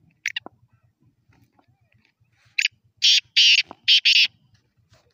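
Male black francolin (kala teetar) calling: a couple of short harsh notes near the start, then a loud run of about five harsh, grating notes in the second half.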